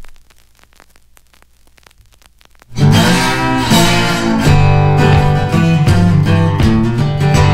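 Background music: after a quiet opening with a brief tick, strummed acoustic guitar with a steady bass line starts suddenly about three seconds in.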